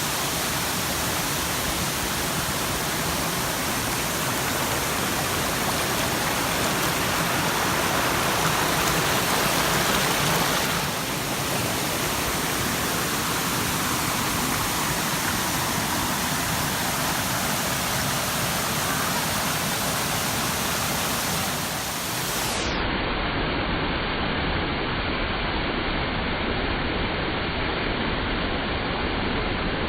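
Steady rush of water from Smokey Hollow Falls, a 20-metre waterfall on Grindstone Creek in strong flow. About two-thirds of the way through, the sound turns duller as its high end drops away.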